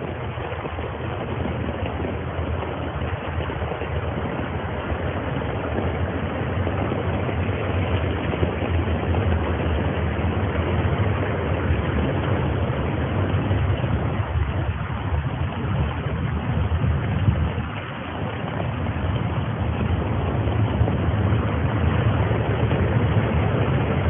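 Floodwater rushing down a flooded city street and churning at the curb: a steady rushing noise with a strong low rumble, dipping briefly about three quarters of the way through.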